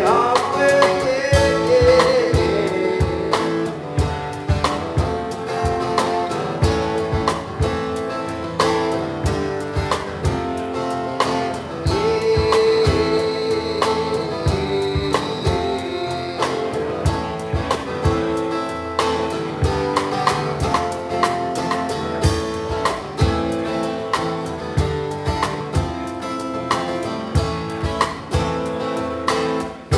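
Live band music: a strummed acoustic guitar and a drum kit playing a rock ballad, with a male voice singing long held notes in places.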